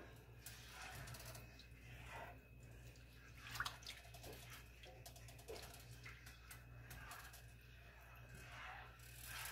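Faint sounds of a cornstarch-thickened sauce simmering in a nonstick skillet while a plastic spatula stirs it, soft scrapes and light bubbling over a low steady hum, with one slightly louder tick about three and a half seconds in.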